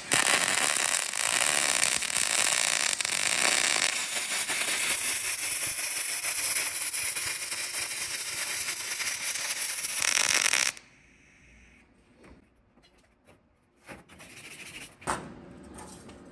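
Electric welding arc crackling steadily for about ten seconds as a bead is run on steel angle iron, then cutting off suddenly. A few light knocks and scrapes follow as the welded piece is handled on the steel table.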